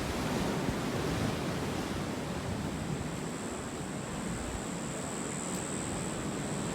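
Steady rushing wash of ocean surf, with some wind on the microphone.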